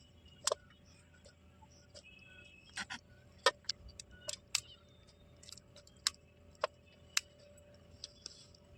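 A series of sharp, irregularly spaced clicks and taps, about a dozen, over a faint steady background.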